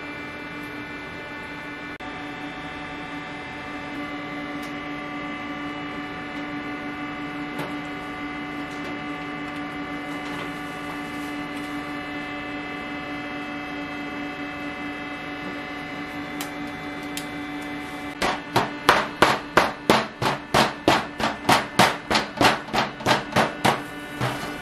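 A steady machine hum, then, for the last six seconds or so, rapid loud clacking at about three strikes a second as metal spatula scrapers chop shawarma chicken on a flat steel griddle.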